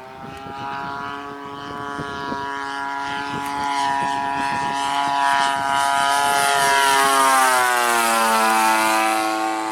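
Gas two-stroke engine of a radio-controlled RV-8 model plane flying past. Its steady engine note grows louder, then drops in pitch over the last couple of seconds as the plane goes by.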